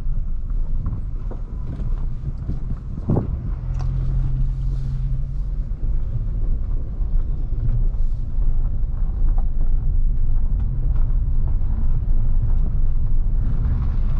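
Nissan Kicks with its 1.6-litre four-cylinder engine and CVT driving along: a steady low rumble of engine, tyres and road, with one short thump about three seconds in.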